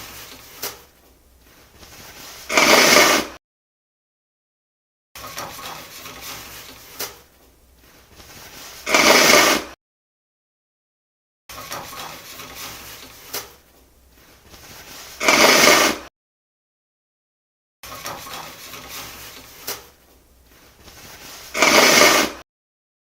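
Toilet paper torn off a roll with rustling and a click, followed by one loud, short nose blow into the paper. The sequence repeats four times, with silent gaps between.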